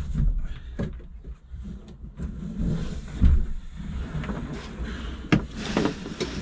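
A kayak being slid into the back of a van: irregular hollow knocks and scraping against the vehicle's floor and fittings, with a heavy thump a little after three seconds in and sharper knocks near the end.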